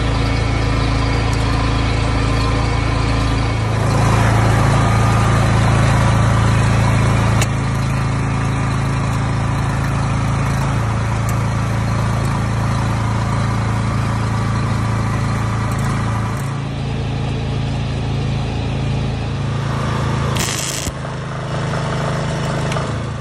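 Miller Dialarc transformer TIG welding power source running, a loud steady electrical hum with its cooling fan. About three seconds before the end a short hissing burst as the TIG arc is struck on steel.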